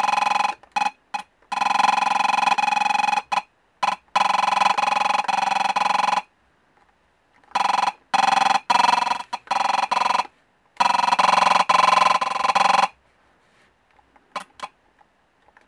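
Loudspeaker of a homemade infrared remote-control tester buzzing in bursts as buttons on a universal remote are pressed: the circuit turns the remote's infrared code pulses into a harsh, mid-pitched buzz. About seven bursts, some brief blips and some lasting two to three seconds, with a different pattern depending on the key pressed.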